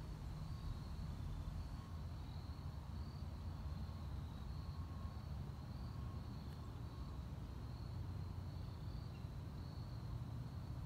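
Outdoor ambience: insects chirping in a high, evenly repeating pulse a little under once a second, over a steady low rumble.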